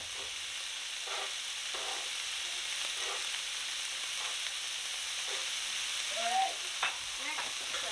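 Sliced onions and bell peppers sizzling steadily in olive oil in a very hot skillet, with a few light knocks.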